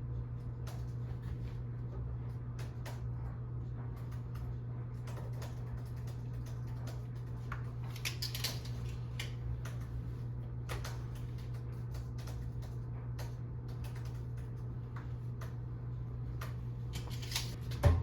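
Scattered light clicks and handling noises over a steady low hum, with a few quick flurries of clicks and one sharp knock near the end.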